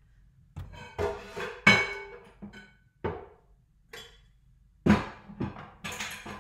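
Glass dishes knocking and clinking as a large glass bowl is taken down and handled, a run of separate knocks, some ringing briefly, the loudest under two seconds in.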